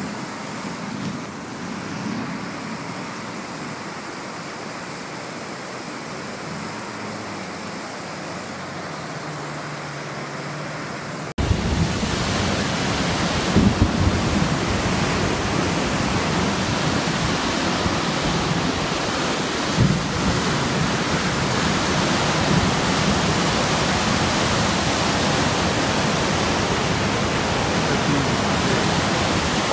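Steady rush of heavy rain and flowing floodwater. About eleven seconds in it cuts abruptly to a louder, fuller rush of water.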